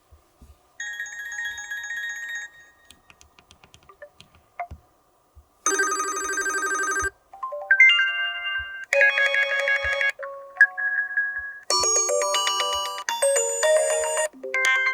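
HTC Desire 628 stock ringtones previewed one after another: a short electronic tone, then a brief buzzing tone, then several melodic ringtones, each cut off after a second or two as the next one starts.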